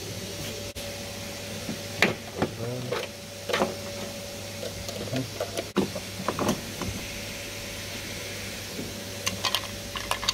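Plastic trim clips and fixings clicking and knocking as the rear bumper and the tailgate badge unit of a BMW M140i are unclipped by hand: a handful of separate sharp clicks scattered through, over a steady hum with a steady tone.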